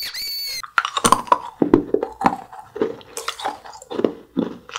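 A ring-shaped whistling candy blown between the lips gives a high whistle that stops about half a second in. Then the hard candy is crunched and chewed, in irregular sharp crunches close to the microphone.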